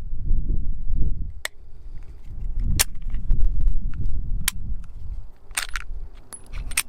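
Glock 43X 9mm pistol firing single shots, about five of them spaced a second or more apart, with wind buffeting the microphone.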